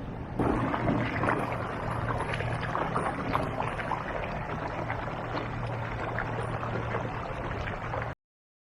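Boat outboard motor running steadily under way, with water splashing and slapping against the hull. The sound cuts off abruptly near the end.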